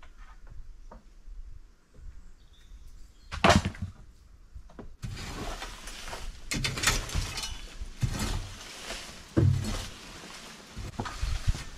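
A long-handled hand tool scraping and digging through dry rubble and earth in repeated strokes, starting about five seconds in, with a heavier thud about two thirds of the way through. Before that there is a single sharp knock about three and a half seconds in.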